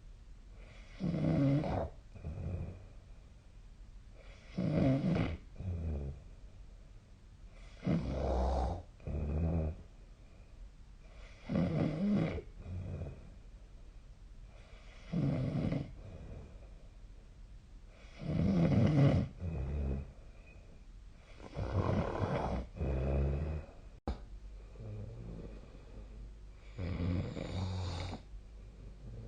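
A sleeping person snoring in a steady rhythm, one snore about every three and a half seconds. Each is a long snore followed closely by a shorter one.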